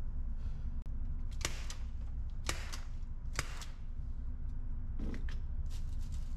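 Steady low hum of an indoor shooting range, with three sharp cracks about a second apart, then a few lighter clicks and knocks near the end.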